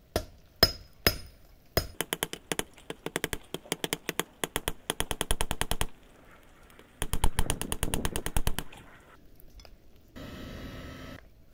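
Hand hammer forging a heated steel rebar on a sledgehammer head used as an anvil. A few single blows, the first with a short metallic ring, then two rapid runs of blows at about five a second.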